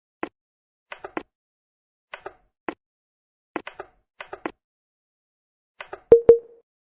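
Toy brick-built model train running on plastic track, its wheels clicking over the rail joints in irregular groups of two or three. About six seconds in comes a louder double click with a short ringing tone.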